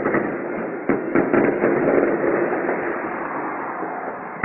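Fireworks going off in a dense run of bangs and crackles, busiest about a second in and thinning toward the end.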